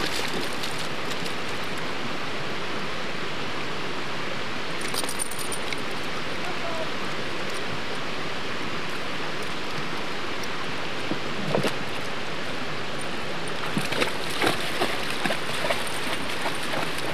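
Steady rush of a shallow, rocky creek, with bursts of splashing as a dog runs through the water, heaviest near the end.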